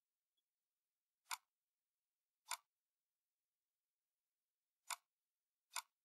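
Four single computer-mouse button clicks at uneven intervals, with near silence between them.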